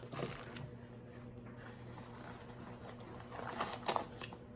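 Faint handling noise from combination padlocks and their packaging: soft rustling with a few light clicks about three and a half seconds in, over a steady low hum.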